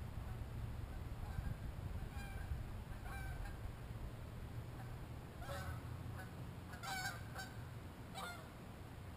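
Distant birds calling: a string of short calls in loose groups, the loudest about seven seconds in, over a steady low rumble.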